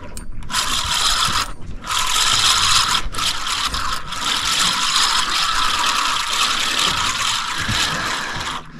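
PENN fishing reel being cranked fast under the load of a hooked fish, its gears giving a continuous rasping whirr that starts about half a second in and breaks off briefly a few times. This is the line being wound in as a fish is brought up to the boat.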